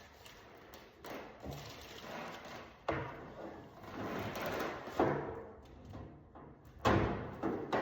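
A series of knocks and thumps, about four, with scraping and rustling between them, from hands working on an installation in a cabinet.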